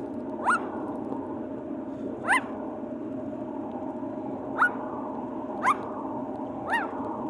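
Green parrot giving five short, sharp calls spaced one to two seconds apart, each sliding up and then down in pitch.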